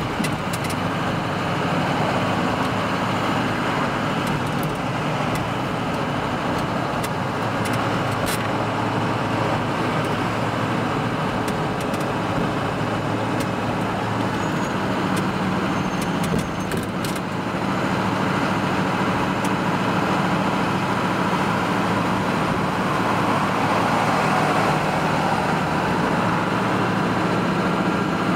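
Steady engine and road noise inside a moving car's cabin, with a short dip in level about two-thirds of the way through.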